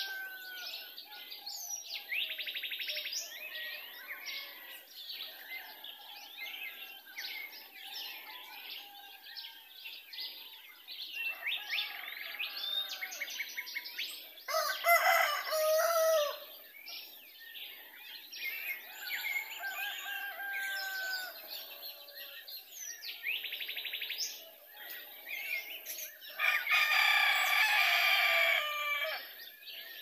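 Wild birds singing and chirping in the trees, many short calls overlapping, with two louder, longer calls, one about halfway through and one near the end.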